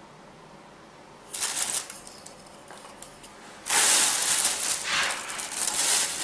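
A black plastic bag of dry tinder crinkling and rustling as a hand rummages in it. A short rustle comes about a second in, then a longer, louder stretch from a little past halfway to the end.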